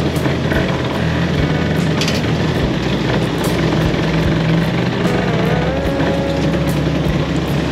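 Kawasaki Ninja 150 SS two-stroke single-cylinder motorcycle engine running steadily at low speed, heard from the rider's seat.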